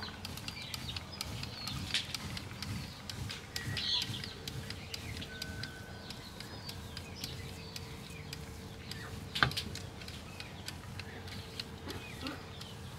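Queso fresco being grated by hand on a flat metal grater standing in a ceramic plate: quiet scraping with scattered light clicks and one sharper knock about nine seconds in. Birds chirp in the background.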